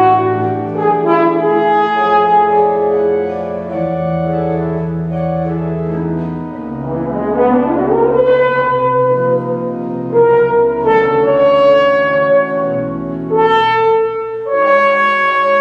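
French horn and pipe organ playing together: the horn sounds sustained notes over held organ chords and low pedal tones, with a rising slide in pitch about seven seconds in.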